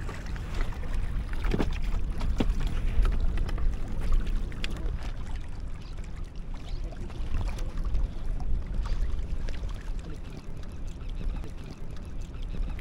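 Wind rumbling on the microphone, with small waves lapping on shore rocks and a few light clicks of handled fishing gear.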